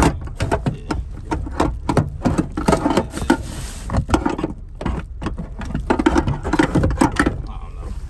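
Quick, irregular clicking and clattering of small hard objects being handled, over the steady low hum of an engine idling.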